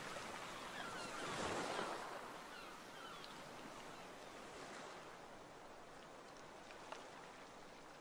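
Strong wind and choppy lake waves on the shore, with a few short bird calls in the first three seconds and a louder gust about a second and a half in. About five seconds in, the sound changes to a steadier, duller hiss of wind and rain heard from inside a car.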